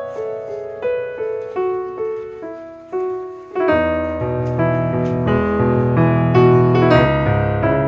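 Soft piano music: a slow melody of single notes, joined about halfway through by deeper, fuller chords that make it louder.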